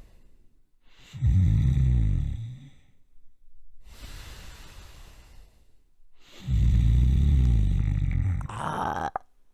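A person snoring: two loud, rattling snores about five seconds apart, with a softer breath between them. The second snore ends in a brief rising whistle.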